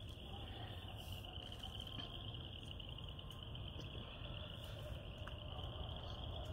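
Crickets trilling steadily: a continuous high-pitched trill, faint, over a low background rumble.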